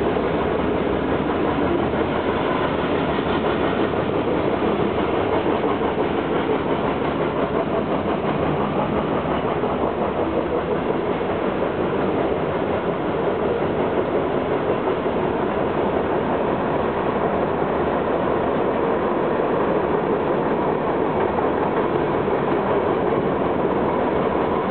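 Freight cars of a long mixed freight train rolling past, with a steady rumble and clatter of steel wheels on rail.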